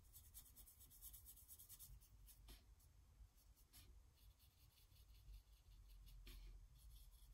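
Near silence: faint strokes of a fine paintbrush on watercolour paper, with a few soft scratchy touches.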